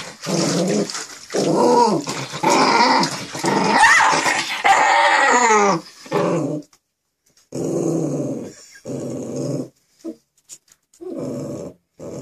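Small dog growling in a string of short, low growls while being held in a bath, with a longer stretch in the middle where the growl slides up and down in pitch into whining; a protest at being bathed.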